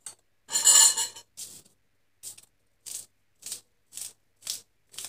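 Knife slicing through a spring onion held in the hand, with no cutting board: crisp short cuts at a steady pace of about two a second. A longer rustle of handling about half a second in comes before the cuts.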